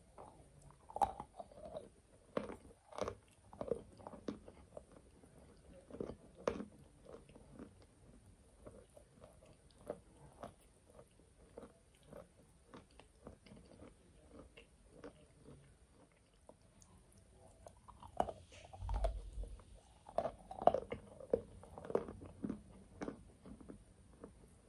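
Close-miked biting and chewing of a block of chalk: irregular sharp crunches with quieter chewing between them, busier and louder for a few seconds near the end.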